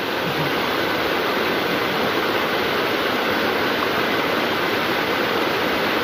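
Water rushing and splashing down a rocky waterfall cascade close by, a steady loud rush.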